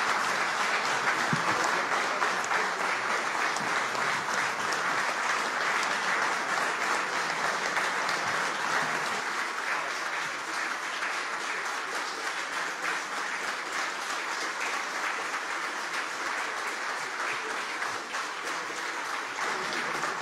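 Audience applauding, a dense continuous clapping that slowly fades toward the end.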